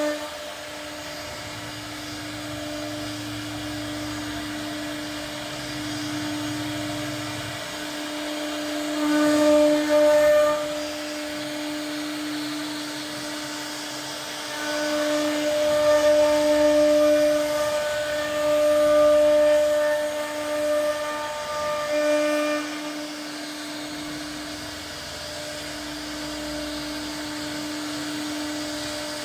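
CNC router spindle whining steadily at one fixed pitch. It grows louder and harsher while the bit cuts into the door panel: briefly about a third of the way in, then for several seconds through the middle.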